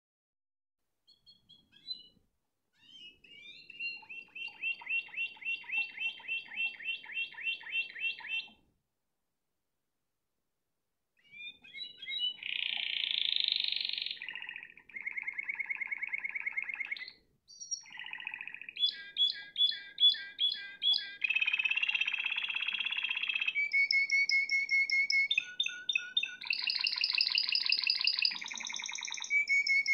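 Spanish timbrado canary singing: a phrase of evenly repeated notes at about three a second, a pause of a few seconds, then a long unbroken run of changing trills and rolls.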